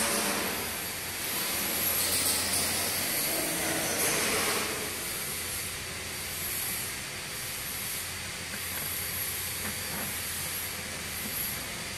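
Pomegranate peeling machine running: a steady rushing noise with a low hum, louder for the first few seconds and then settling lower, with a few faint clicks near the end.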